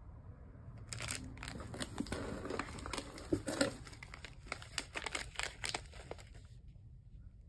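Plastic snack wrappers crinkling as they are handled: one packet is set down and another picked up. The crinkling starts about a second in and stops near the end, with many small irregular crackles.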